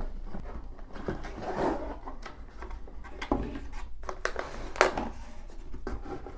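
Cardboard motherboard box being handled and its lid flipped open, with irregular taps, scrapes and the crinkle of plastic packaging inside; one sharper click about five seconds in.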